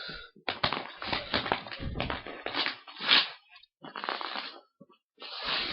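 Irregular crinkling and rustling as a mailed package is handled and opened, with dense crackling for the first few seconds and shorter bursts later.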